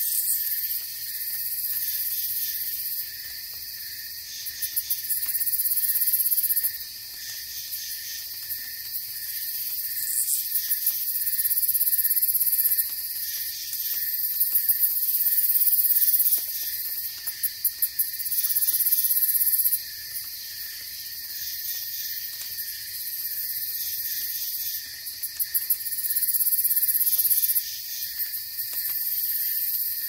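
Night insect chorus of crickets. A loud, high-pitched buzzing trill switches on and off every few seconds, with short runs of rapid chirps several times.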